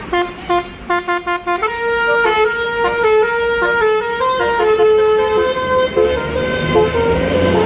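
Bus telolet 'basuri' musical air horn: a quick run of short toots, then a tune of held notes stepping up and down. Near the end the bus's engine rises in pitch underneath.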